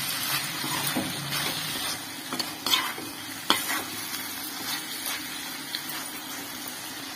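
Metal spatula stirring and scraping brinjal pepper fry in a kadai over a steady sizzle of frying oil, with a few sharper scrapes around the middle.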